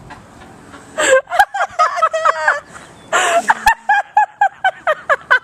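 A young woman choking on a mouthful of cinnamon powder: coughing, with rapid high-pitched gasping cries, about four a second.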